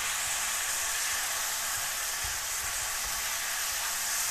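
Steppe oyster mushrooms (Pleurotus eryngii) sizzling steadily in oil in a frying pan as they are stirred with chopsticks. A splash of white wine is cooking off: its alcohol and water are boiling away, leaving only the oil.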